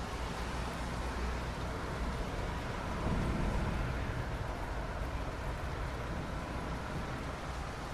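Soft rain falling on asphalt, a steady even hiss, over a low rumble that swells briefly about three seconds in.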